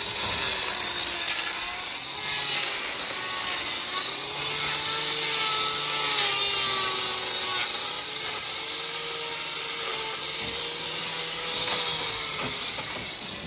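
A power tool sawing steadily, its motor pitch wavering up and down as it works under load.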